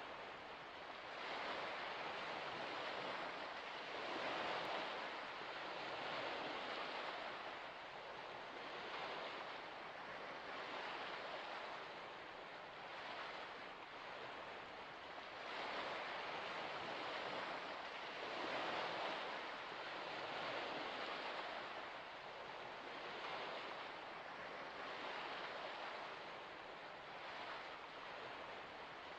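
Wind-driven water lapping at the shore of a shallow salt lake: an even rushing hiss that swells and fades every two to three seconds.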